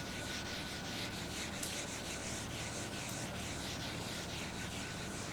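Writing on a board: a run of short scratchy strokes, several a second, with a faint steady high tone underneath.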